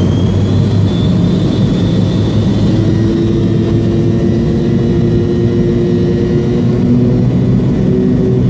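McDonnell Douglas MD-80's rear-mounted Pratt & Whitney JT8D turbofans running at takeoff thrust, heard inside the cabin: a steady loud rush with a high engine whine that edges up in pitch about a second in.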